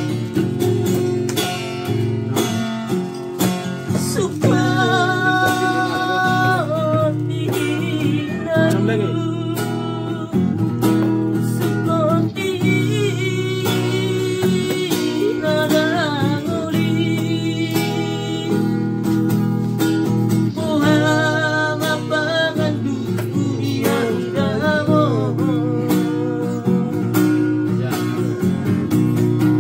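A man singing, accompanied by a strummed Yamaha acoustic guitar.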